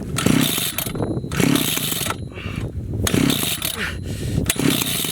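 Chainsaw being pull-started again and again, about one pull a second, the engine turning over without catching.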